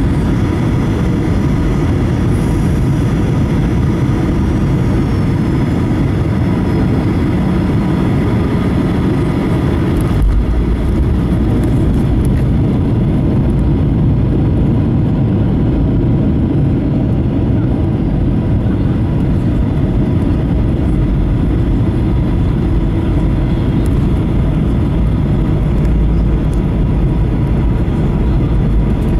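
Cabin sound of a Boeing 737-800 landing, heard over the wing: steady engine whine on short final, then the touchdown about ten seconds in, with a sudden thump. After it a heavy low rumble of the main wheels rolling on the runway carries on as the jet slows down.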